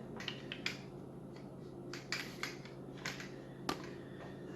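Small scattered clicks and light knocks, about seven of them, from hard objects being handled, over a faint steady hum.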